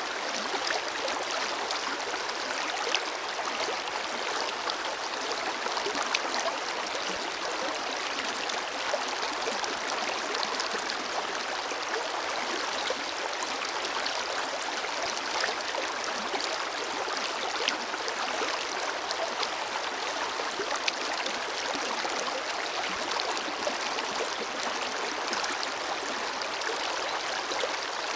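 A shallow forest river flowing steadily, a constant rushing with small splashes and gurgles scattered through it.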